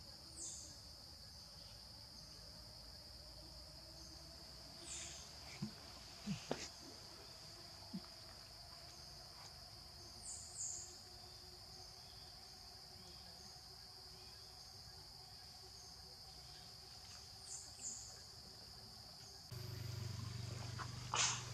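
Night insects, crickets or similar, trilling steadily in one high pitch, with a few short high squeaks and a couple of light taps. A low steady hum comes in near the end.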